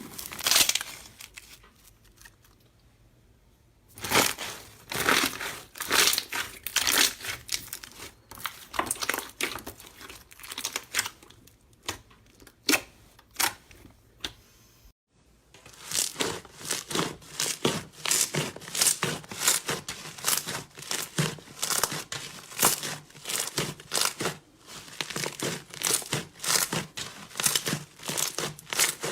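Slime being squeezed and kneaded by hand, giving rapid crackling and popping. After a short burst it pauses for a few seconds, then crackles on, breaking off for a moment about halfway before carrying on.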